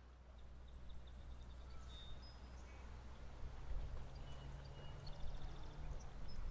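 Outdoor ambience fading in over the first second: a steady low rumble with small birds chirping briefly and irregularly over it.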